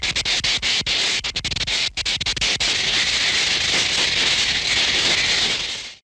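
Vintage cartoon electricity sound effect: a hissing electric crackle that sputters with rapid breaks for about the first two and a half seconds, then settles into a steady sizzle that cuts off sharply near the end.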